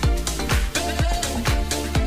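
Background dance music with a steady drum beat, about two beats a second.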